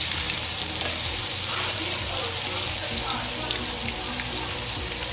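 Sliced Polish sausage sizzling steadily in a hot frying pan.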